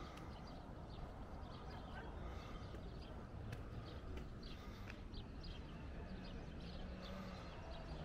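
Open-air ambience: a steady low rumble with small birds chirping again and again in short notes. A faint steady hum comes in near the end.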